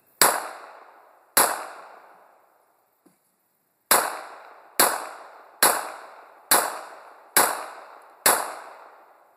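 Baikal IJ-70 Makarov pistol firing 9×18 mm rounds: eight shots, each followed by a decaying echo. Two shots come about a second apart, then after a pause of about two and a half seconds six more come in steady succession, roughly one a second.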